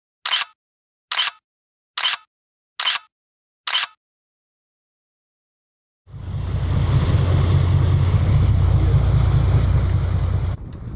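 A camera shutter clicks five times, about once a second. After a short silence comes the steady low rumble of a boat under way at sea, with wind on the microphone, easing off just before the end.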